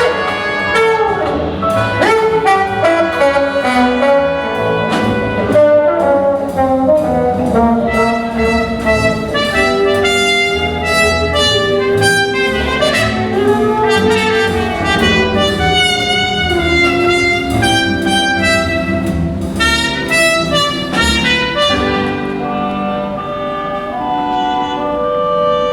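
Big-band jazz with trumpets, saxophones and trombones playing an instrumental passage over a steady beat.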